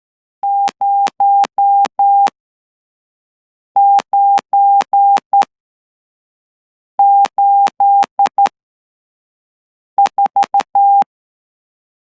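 Morse code sidetone: a steady mid-pitched beep keyed by hand on a straight key through a CW Player iBox at about 12 words per minute. Four characters of dots and dashes are sent, with a pause of over a second between each.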